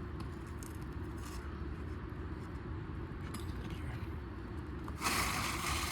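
A steady low rumble, then about a second of harsh scraping noise near the end, from work on an asphalt shingle roof.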